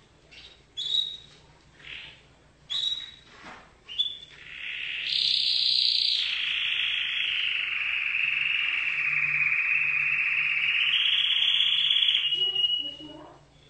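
Domestic canary singing: a few short high chirps, then one long unbroken rolling trill of about eight seconds that stops near the end.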